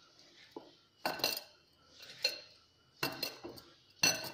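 Metal bangles on a mixing hand clinking and jingling in short bursts about once a second, with some ringing, as the hand works dry chopped bathua and gram flour in a glass bowl.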